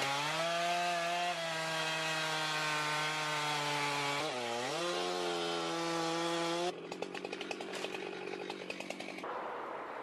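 Two-stroke chainsaw cutting into a large tree trunk at full throttle, its pitch dipping briefly and recovering about four and a half seconds in. About seven seconds in it drops back to idle, with a quick run of crackling ticks for a couple of seconds.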